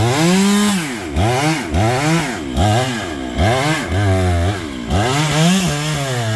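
Two-stroke chainsaw cutting into a tree trunk during felling, its engine speed repeatedly rising and dropping, about once a second, as the bar is worked back and forth under load in the cut.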